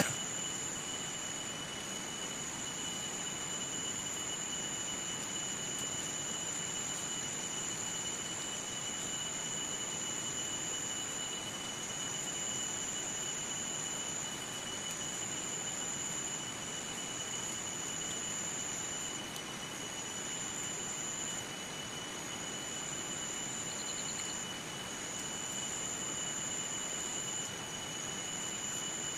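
Steady high-pitched drone of insects in the forest, dropping out for a moment a few times near the end, over a constant hiss of outdoor background.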